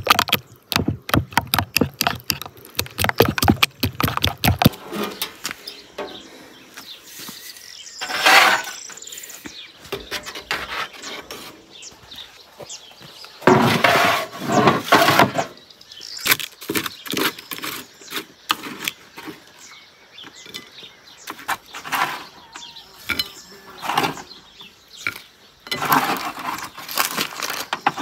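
A metal spoon beating a thick sauce in a ceramic bowl, a quick run of clicks, about four or five a second, for the first few seconds. Then scattered knocks and scrapes of utensils, with a longer clatter about halfway through and a wooden spatula scraping potato slices off a metal baking tray near the end.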